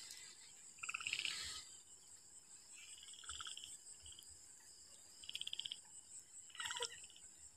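Faint night chorus: frogs calling in short, rapid pulsed trills, four times, over a steady high-pitched insect drone.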